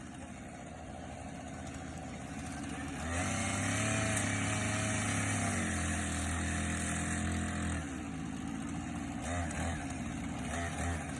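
An engine running steadily, rising to a louder, harder-working pitch about three seconds in and dropping back about five seconds later.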